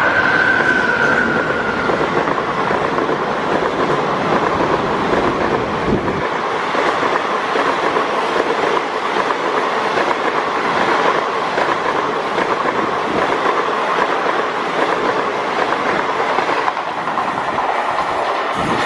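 Indian Railways passenger train coaches rolling past close by, a steady rumble with wheels clicking over the rail joints. A high steady tone fades out in the first couple of seconds.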